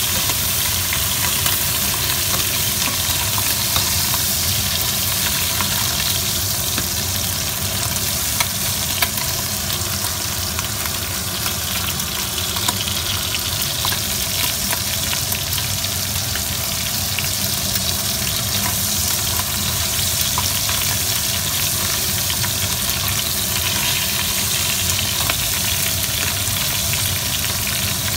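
Mixed seafood (squid rings, baby octopus, prawns and lobster) sizzling steadily as it fries in hot oil in a non-stick pot, with a spatula stirring and scraping it now and then.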